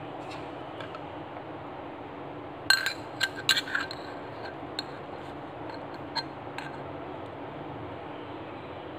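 Steel spoon clinking against a stainless-steel pressure cooker: a quick run of clinks about three seconds in, then a few single clinks spread over the next few seconds, over a steady background hum.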